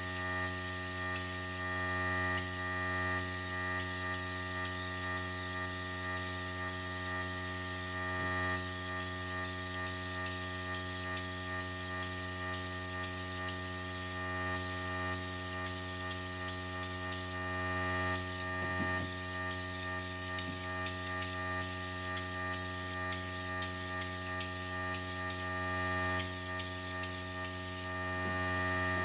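Air-powered body deadener spray gun hissing as bed liner is sprayed, in many short bursts with brief gaps and a few longer pauses. A steady hum runs underneath.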